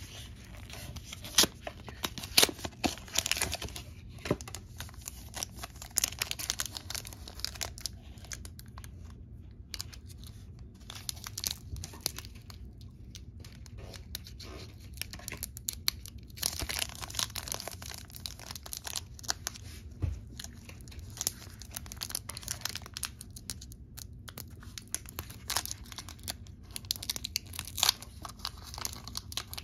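Cardboard blister packaging pulled apart, then the foil wrapper of a Pokémon trading-card booster pack torn open and crinkled by hand, giving irregular crackling and tearing.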